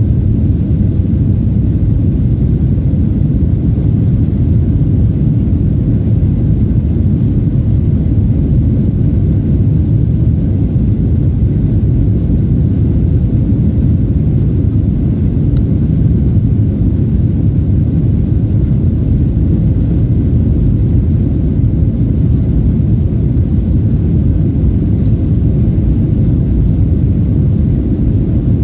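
Steady low rumble inside the cabin of a Boeing 737-800, the sound of its CFM56 jet engines while it is on the ground.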